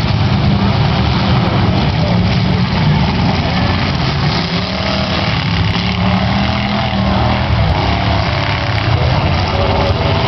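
The engines of a pack of demolition derby cars running together, loud and steady.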